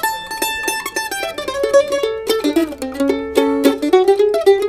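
Bulas F-style acoustic mandolin (their standard model) played solo: a quick melody of plucked notes, several a second, with a stretch of two notes sounding together partway through.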